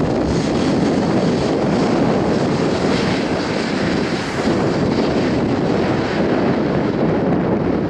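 Jet noise from an Airbus A380's four Engine Alliance GP7000-series turbofans during its takeoff roll: a loud, steady rush, with wind buffeting the microphone.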